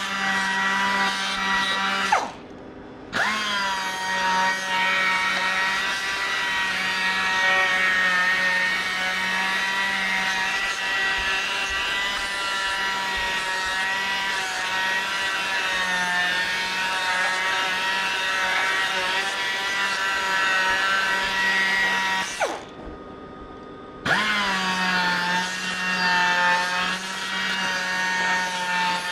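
Small air-powered polisher whining steadily at high speed while buffing a motorcycle engine's side cover, its pitch sagging a little as it is pressed onto the metal. Twice the trigger is let go: the whine winds down and goes quiet for about a second, then spins back up.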